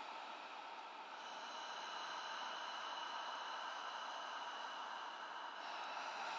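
Steady electronic drone: a hiss with several held high tones on top. The upper tones shift about a second in and again near the end.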